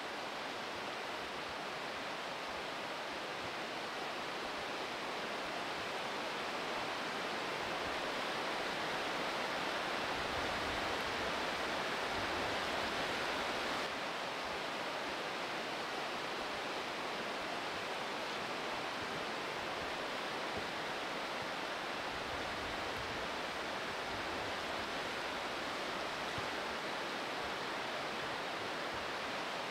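Oulanka River rapids rushing steadily below the canyon. The rush swells slightly, then drops a notch about halfway through.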